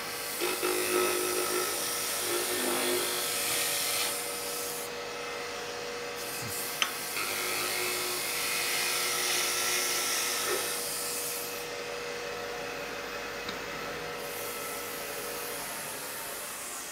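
Roughing gouge cutting along a long spindle spinning on a Robust wood lathe: a continuous hiss of wood shaving off, swelling and easing as the tool moves along, over the steady hum of the running lathe. A single sharp click about seven seconds in.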